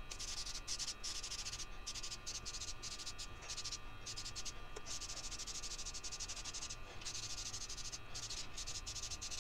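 Aerosol spray can of gloss lacquer hissing in many short on-off bursts, with a longer unbroken spray through the middle, as lacquer finish is sprayed onto a wooden piece.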